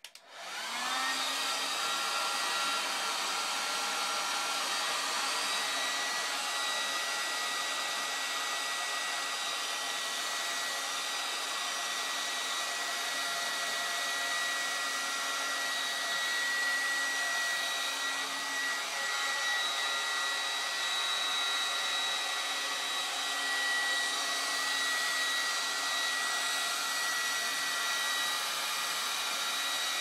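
Handheld hair dryer switched on, spinning up over about a second, then running steadily with a high-pitched whine over the rush of air.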